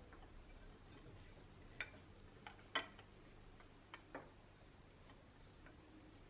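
A few faint, scattered clicks and taps of a plastic rice paddle against a ceramic bowl and plate as cooked rice is scooped out, over near silence. The sharpest tap comes a little before the middle.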